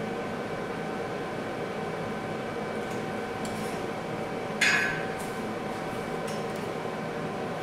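A steady mechanical hum runs throughout. A little past halfway there is one loud metallic clank that rings briefly, with a few faint light clicks before and after it, like metal parts or tools being handled.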